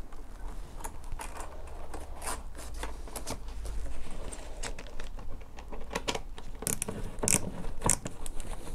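Stainless steel Jubilee (worm-drive) hose clip being fitted around flexible plastic ducting and tightened with a screwdriver: the metal band scraping and jangling, with scattered small clicks that are sharper near the end as the screw is turned.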